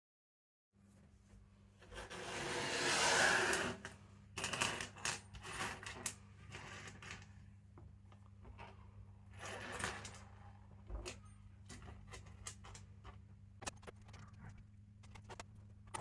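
Small metal armature parts clicking and tapping as they are handled and worked, with a brief louder rushing noise about two to four seconds in, over a steady low hum.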